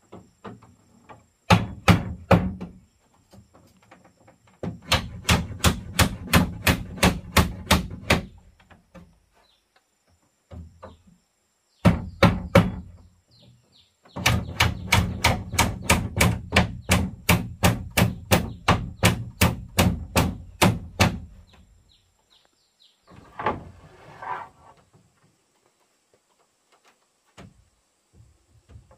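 Hammer driving nails into wooden wall planks overhead, in quick runs of blows about three to four a second with pauses between runs. A short scraping noise near the end.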